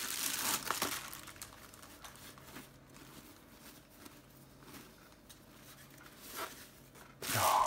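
Bubble wrap and thin foam packaging crinkling and rustling as a camera body is unwrapped. Loudest in the first second, then soft, intermittent rustling.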